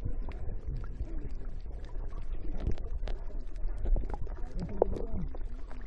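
Muffled sea water sloshing and bubbling against a waterproof phone's microphone: a steady low rumble with scattered small clicks. Faint muffled voices come in near the end.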